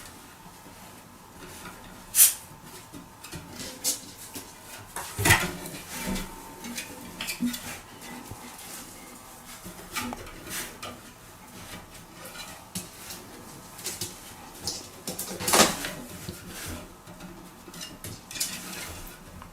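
Irregular clinks, knocks and clatters of small hard objects being handled, with a few sharper knocks about 2 seconds in, about 5 seconds in and near 15 seconds.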